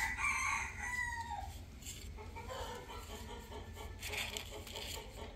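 A rooster crowing once, a call of about a second and a half that falls away at its end, followed by soft, rapidly repeated clucking.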